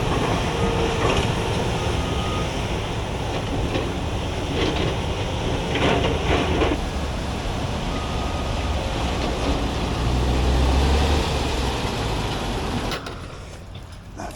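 Heavy diesel machinery running and moving debris: a steady low engine rumble with clanks and rattles, which drops away sharply near the end.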